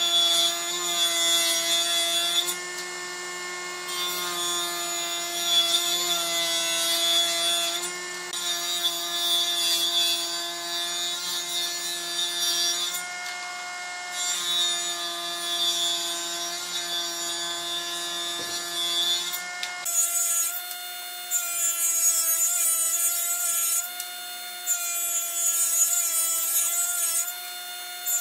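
Table saw running with a steady whine, its blade cutting a wooden board in repeated passes of two to three seconds each with short pauses between.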